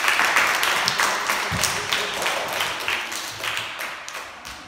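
A group of children clapping and applauding, loud at first and gradually dying away.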